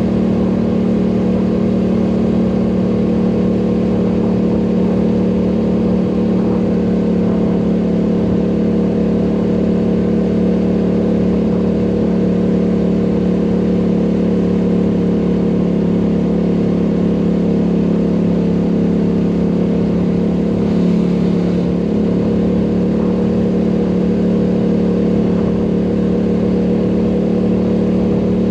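ATV engine running at a steady speed on the ride, a constant hum with no change in pitch. There is a brief hiss just past two-thirds of the way through.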